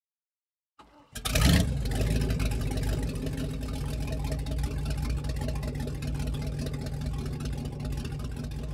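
An engine starts up about a second in with a brief loud rev, then runs steadily.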